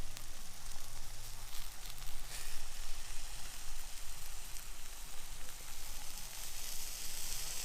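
Food sizzling in a pan over a camp stove: a steady frying hiss with a few faint pops. It gets a little louder about two seconds in.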